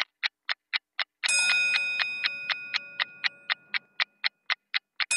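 Clock-like ticking at about four ticks a second, with a bright bell chime striking about a second in and slowly fading, and a second chime right at the end.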